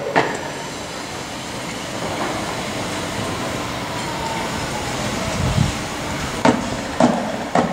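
Building-site and street noise: a steady rumble, a short low thud about five and a half seconds in, then three sharp knocks about half a second apart near the end.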